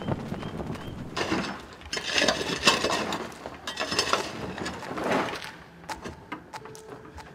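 Pick digging into loose stony rubble: several grating strikes and scrapes of the blade through rock and gravel, then lighter clicks of stones near the end.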